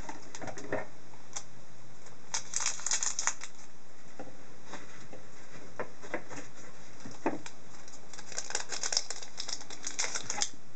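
Trading-card pack wrapper crinkling and crackling as it is handled and torn open. The crackles come in two busier stretches, about two seconds in and again near the end.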